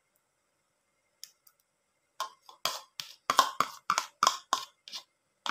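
A spoon tapping and scraping against a bowl in a quick run of sharp clicks, about three or four a second, knocking the last of the beaten egg out of the bowl.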